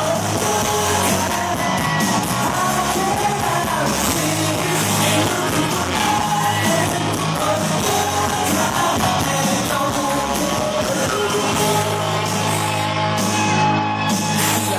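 Loud rock-style music with a singer's voice over a steady bass line.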